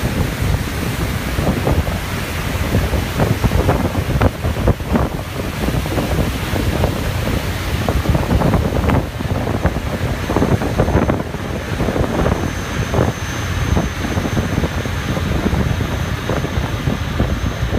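Wind buffeting the microphone on the open deck of a moving ferry, in uneven gusts, over a low rumble of the vessel and the water.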